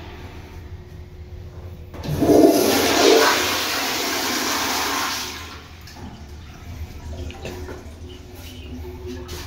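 Commercial toilet with a chrome flushometer valve flushing. A sudden loud rush of water starts about two seconds in and lasts about three seconds, then settles to a much quieter running of water.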